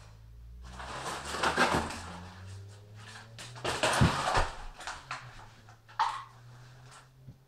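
Rustling and scraping from kindling and paper being handled at a wood stove, with a sharp knock about halfway through and another near the end. A low steady hum runs underneath.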